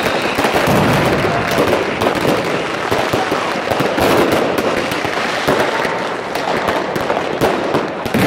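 Many fireworks rockets bursting overhead at once: a continuous crackle with frequent sharp bangs and no gap.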